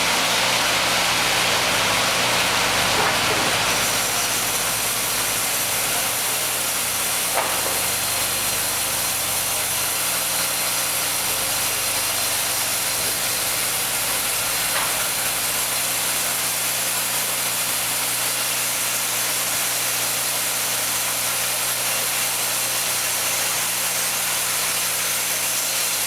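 Sawmill machinery running steadily: an even engine note under constant noisy mechanical sound, a little louder for the first four seconds, with a single sharp tick about seven seconds in.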